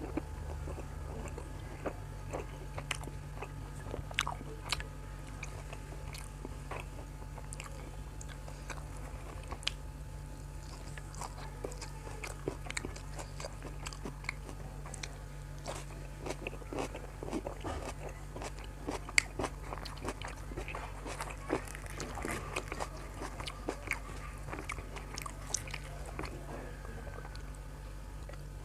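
A person eating close to the microphone: crunchy bites and chewing, with many short crisp crackles throughout, over a steady low hum.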